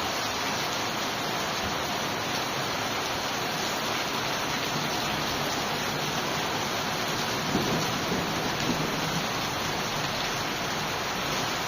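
Steady rain falling, an even hiss without break. A brief low sound rises out of it about seven and a half seconds in.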